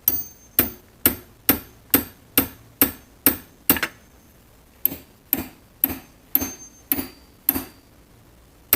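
Hammer blows on the seized metal mechanism of a 1950s Delta Homecraft drill press, struck about twice a second with a short metallic ring after each, with a pause of about a second midway. The part is being worked loose and is just starting to free up.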